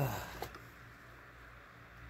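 Quiet room tone in a small room, after the tail of a spoken word, with one faint click about half a second in.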